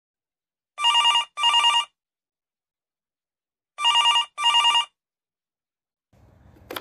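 Push-button corded desk telephone ringing with an electronic double ring: two short rings, a pause of about two seconds, then two more. Near the end a sharp click as the handset is lifted.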